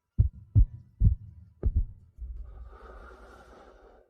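Heavy heartbeat sound effect: deep, loud thumps, four of them in under two seconds, the last one doubled. It gives way to a low rumbling drone with a hiss over it that stops just before the end.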